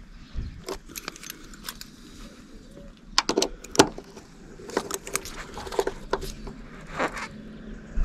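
Metal clicking and clinking of a folding Torx key set as a key turns the bolts of a car door striker to tighten it, the other keys rattling against each other. The sharpest clicks come in a cluster about three seconds in, with more scattered through the rest.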